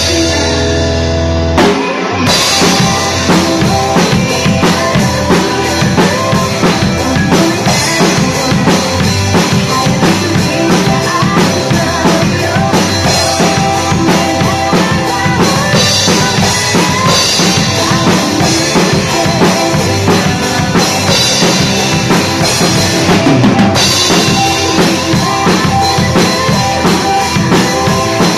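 Acoustic drum kit played live along to a band's recorded song: a steady kick, snare and cymbal beat. For about the first two seconds the song holds a chord with few drum hits, then the full beat comes back in.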